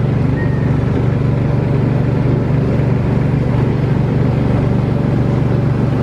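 Engine of an amusement-park antique ride car running steadily at cruising speed, a constant low drone.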